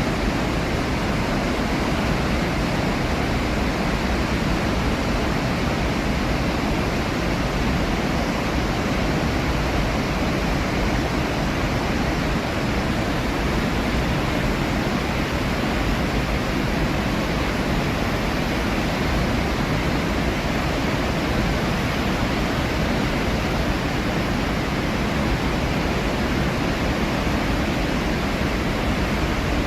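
Iguazu Falls' massive waterfall roaring: a steady, unbroken rush of falling water, heaviest in the low end.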